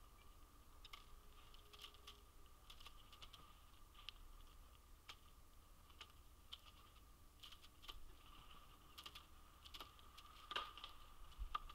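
Faint, irregular taps and clicks of a Canada jay's bill pecking at seed and food scraps in a wooden platform feeder, over a faint steady tone.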